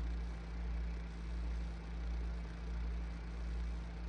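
Steady low background hum with a gentle, even pulsing that swells and fades a little more than once a second.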